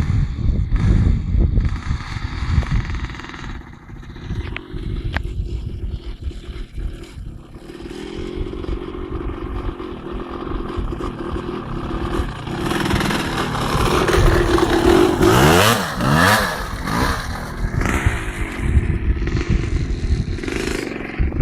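Two-stroke motocross bike engine running, uneven and stuttering at first, then revved harder in the second half with the pitch rising and falling several times.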